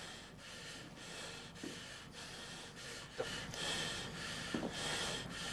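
A man breathing hard in pain, in and out every second or so, with a few short gasps.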